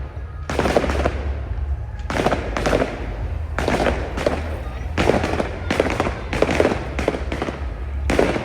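Fireworks display going off in quick runs of bangs and crackles, several a second with short pauses between runs, over a steady low rumble.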